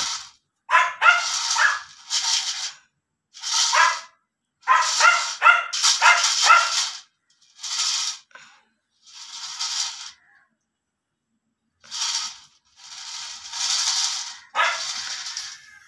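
Young animals crying: about a dozen short, high, hoarse calls with brief silences between them, some with a clear wavering pitch.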